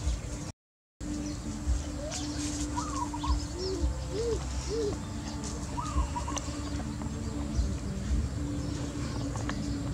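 Birds calling in the background: short arched call notes, some low and some higher, repeating every few seconds over a faint steady hum and occasional low thuds. The sound drops out for about half a second near the start.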